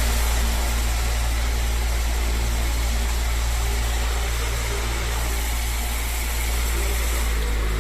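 Electric oscillating fan running steadily: a low hum under an even rush of air.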